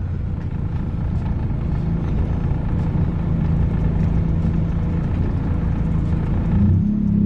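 Acura Integra's four-cylinder engine running at a steady pitch during a drive; near the end the pitch shifts and begins to climb as the car accelerates.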